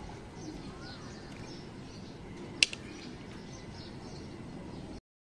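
Birds chirping in the background over a steady ambient hiss, with a single sharp click about two and a half seconds in; the sound cuts off just before the end.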